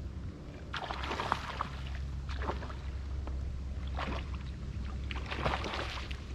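A hooked Australian salmon thrashing and splashing at the surface just off the rocks, in several irregular splashes, the longest about 5 to 6 seconds in. Under it runs a low steady rumble.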